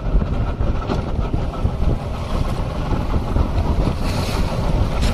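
Wind buffeting the microphone over the running of a small fishing boat and the rush of water along its hull, with a brighter hiss of water about four seconds in.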